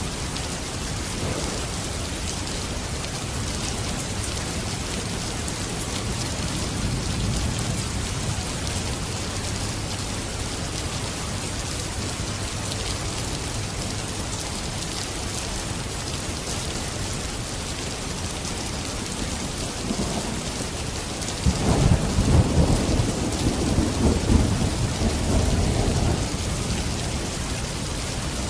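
Steady rain falling, with a faint low rumble of thunder early on and a sudden loud thunderclap about three quarters of the way through that rolls on for several seconds.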